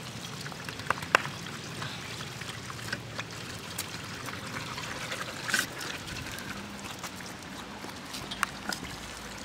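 Water trickling from a dog drinking fountain into its steel bowl, kept running by a foot on the pedal, while a dog laps from it. A few sharp clicks stand out above the flow.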